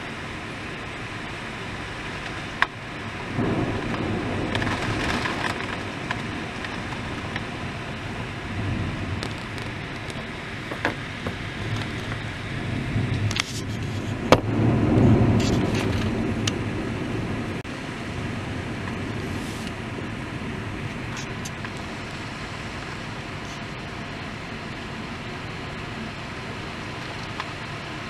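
Thunderstorm: a steady hiss of rain and wind, broken twice by a sharp crack, about two and a half seconds in and again about fourteen seconds in, each followed by a few seconds of low, swelling thunder rumble.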